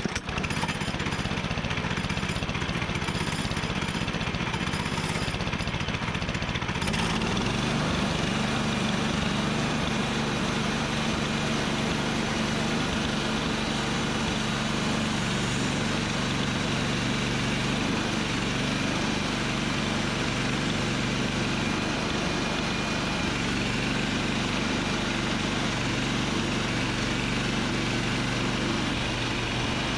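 Portable sawmill's engine running steadily, its low note becoming stronger about seven seconds in.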